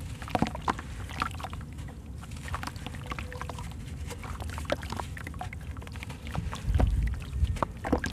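Crumbly sand-cement chunks being crushed and crumbled by hand, with many small crackling crunches as grit and clumps drop and splash into a basin of water. A few heavier low thumps come about seven seconds in.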